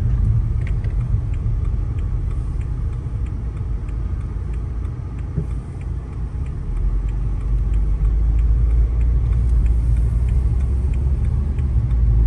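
Car cabin rumble from the engine and tyres on a snowy road, softer around the turn midway, then growing as the car picks up speed. A light, regular ticking sounds about twice a second throughout.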